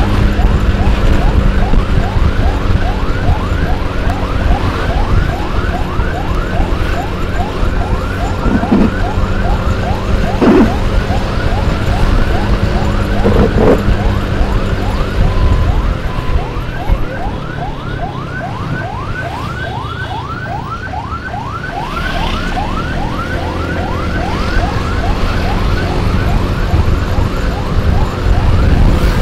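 Electronic emergency siren in a fast yelp, rapid rising sweeps about three a second, over heavy wind and road rumble from a moving motorcycle.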